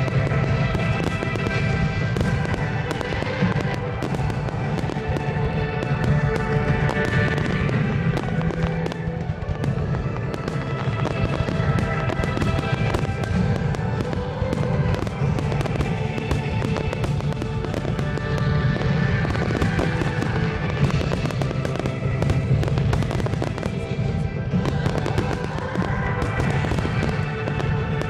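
Fireworks display: aerial shells bursting in rapid, continuous succession, with music playing along throughout.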